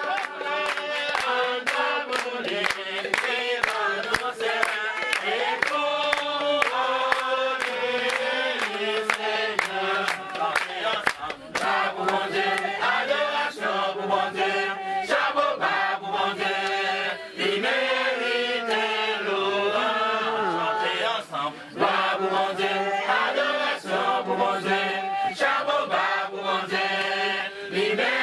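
A group of voices singing together over a steady percussive beat.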